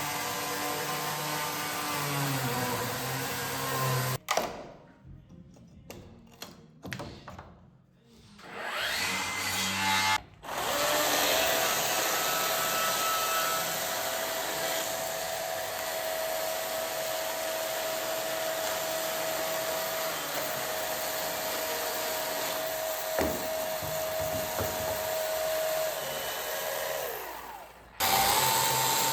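Electric power drill running, stopping about four seconds in, then starting up again with a steady whine until it cuts off near the end.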